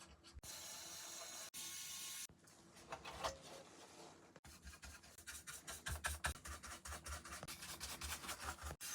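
Faint rubbing and scratching as a mini PC's small case is handled and worked open by hand, with a dense run of quick small clicks from about halfway through.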